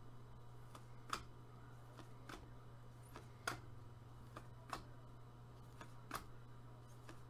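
Upper Deck MVP hockey cards being flipped through one at a time in gloved hands, a soft click or tap as each card is moved, about once every second and a bit, over a low steady hum.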